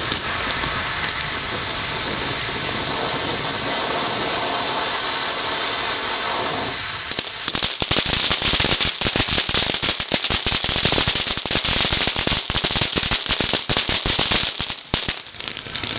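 Ground fountain firework spraying sparks with a steady hiss, which turns about seven seconds in into a dense, rapid crackling that carries on, briefly dropping off near the end.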